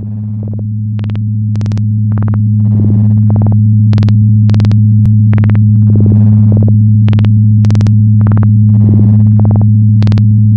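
Electronic intro music: a steady deep synth bass drone with sharp percussive hits a little under twice a second, growing louder over the first few seconds.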